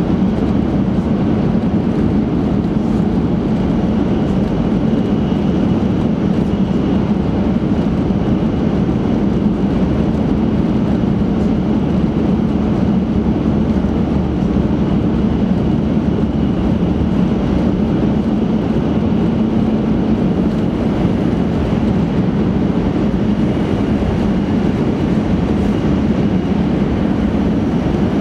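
Kyushu Shinkansen 800 series train running at speed through a tunnel, heard inside the passenger cabin: a loud, steady, unchanging rumble.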